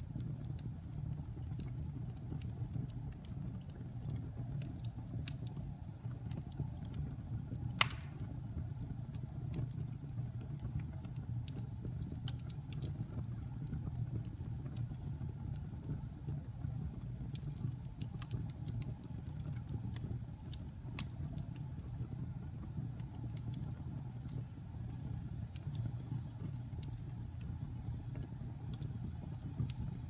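Wood logs burning in a fireplace, crackling with scattered small pops over a steady low rumble; one sharper, louder pop about eight seconds in.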